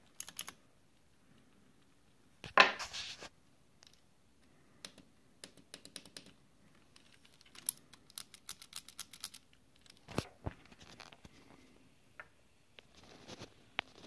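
Cherry MX key switches clicking as they are pressed through prototype plastic thumb paddles and keycaps: scattered single clicks, then a quick run of several presses a second past the middle. A brief louder rustle about two and a half seconds in.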